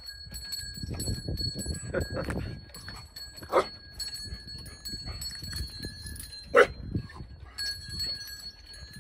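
Puppies yapping while they play: a few short, sharp barks, the loudest about six and a half seconds in, over a faint steady high ringing tone.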